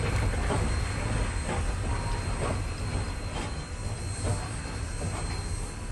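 A train rolling along the rails: a heavy steady low rumble with repeated short clicks and knocks from the wheels, played from a 1958 stereo LP recording.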